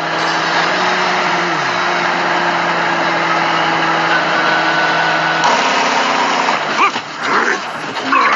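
A vehicle engine running steadily with a hissy drone. Its pitch slides down once about a second and a half in, and the sound changes about five and a half seconds in. Broken, shifting sounds follow near the end.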